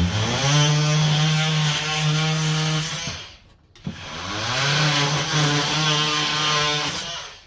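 Power saw cutting wooden dowel rod, run twice: each time the motor spins up, runs steadily for about three seconds, and stops.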